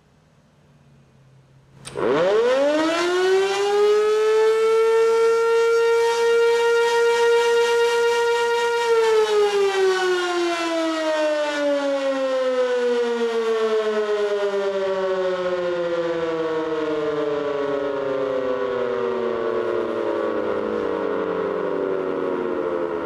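Sentry 16V1T-B tornado siren sounding an alert blast: about two seconds in it winds up sharply to a steady tone, holds it for about seven seconds, then winds down in a long, slowly falling tone.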